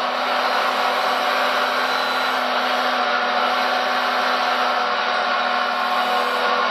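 Steady, even whirring of the small electric motors of radio-controlled construction models, with a faint steady hum underneath.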